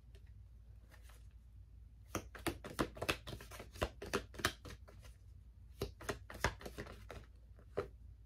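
Tarot cards handled and shuffled by hand: a quick run of card snaps and flutters about two seconds in lasting some three seconds, then a few single snaps.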